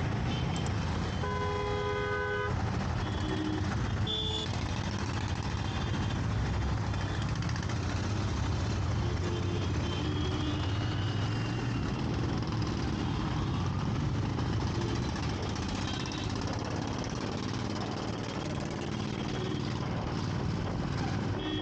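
Steady riding noise of a motorcycle in city traffic: engine, road and wind. A vehicle horn honks for about a second near the start, with shorter honks a few seconds in and again about halfway.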